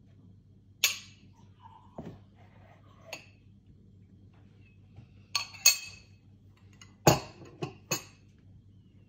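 Glassware and dishes clinking while ingredients are handled: about eight sharp, irregular clinks, each with a brief ring. The loudest come about a second in and again around six and seven seconds in.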